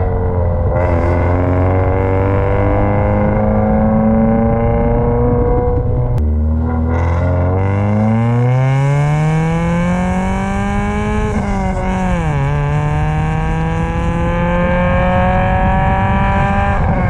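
Subaru Impreza's swapped-in JDM EJ202/203 2.0-litre flat-four running under way, its exhaust note loud and rising in pitch as the car accelerates. The pitch drops sharply about six seconds in and climbs again, then dips briefly near twelve seconds before rising steadily once more.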